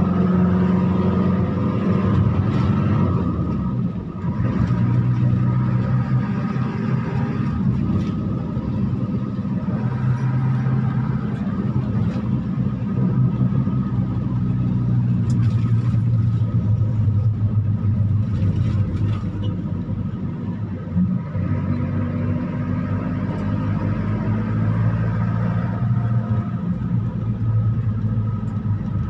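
Engine and road noise heard from inside the cabin of a moving vehicle: a steady low drone whose pitch drops a few seconds in and climbs again past the middle as the vehicle slows and speeds up.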